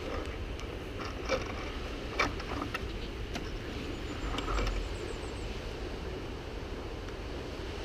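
A dirt bike being handled on a steep rocky trail: scattered knocks and scrapes against stones over a steady low rumble, with a brief swell in the rumble about four and a half seconds in.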